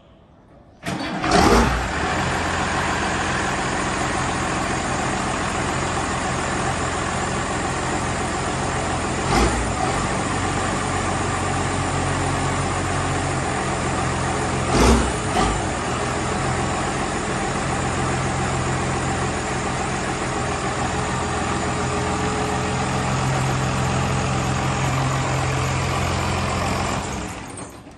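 Case tractor engine started about a second in, then running steadily as the tractor is driven forward onto a wooden block, with two sharp thumps in the middle; the engine is shut off near the end.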